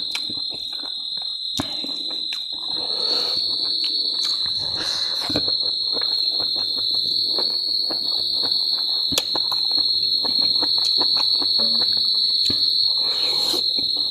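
Close-up eating sounds: chewing and wet mouth clicks, many sharp little clicks with a few softer smacking bursts. Behind them runs a steady high-pitched insect drone.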